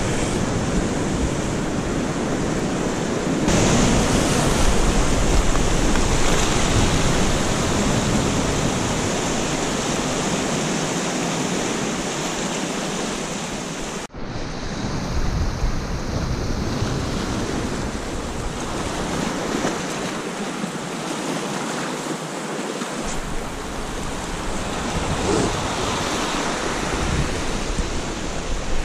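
Sea surf washing and breaking over a rocky shore, a steady rushing hiss, with wind rumbling on the microphone.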